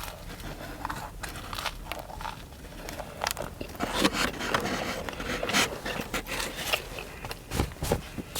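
A person biting and chewing a toasted sub sandwich close to the microphone, with irregular crunches and wet mouth clicks.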